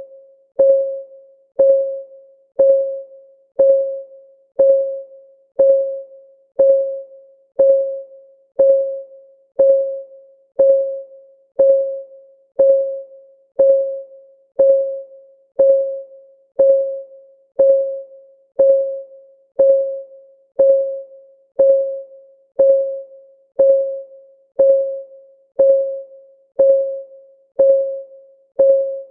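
Steady clock-ticking sound effect of a countdown timer, one tick a second. Each tick is a short, pitched, bell-like tone that fades out quickly rather than a dry click.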